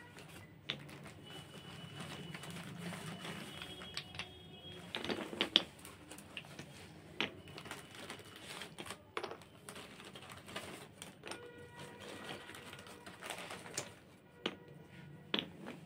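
Unglazed clay diyas and flat clay pieces clicking and clacking against each other as they are handled and taken out of a plastic bag, with the bag crinkling; scattered sharp clacks, a quick cluster of them about five seconds in.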